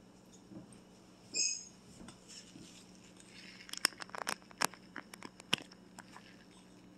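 Household clatter: a short squeak about a second in, then a quick run of sharp clicks and knocks in the middle.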